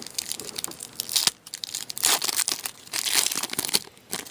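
A 2008-09 Upper Deck SPX hockey card pack wrapper being crinkled and torn open by hand, in irregular crackly bursts.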